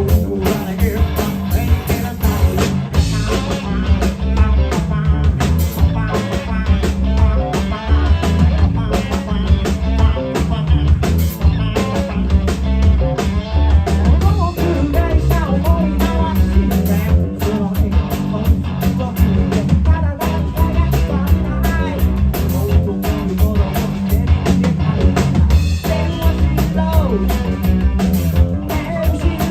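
Live rock band playing loud: electric guitars, bass and a drum kit with a steady beat, and a voice singing over them.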